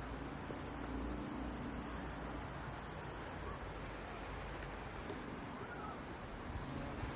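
Cricket chirping in quick high pulses, about four to five a second, which stop a couple of seconds in, leaving a steady high trill over a faint low rumble.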